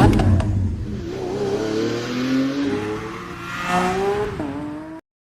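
A vehicle engine accelerating: its pitch sweeps up sharply at the start, then climbs steadily, drops back and climbs again twice. It cuts off abruptly near the end.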